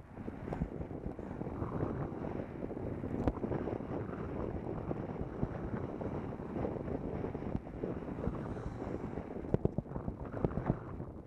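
Wind rushing over the microphone of a camera on a moving bicycle, with frequent knocks and rattles over the road surface and a cluster of sharper knocks near the end.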